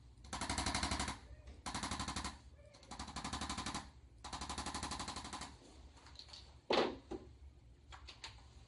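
A mechanical percussion device tapping rapidly and evenly, like rapid fire, in four bursts of about a second each with short pauses between, as used in chiropractic soft-tissue or adjusting treatment. A single dull thump follows about seven seconds in.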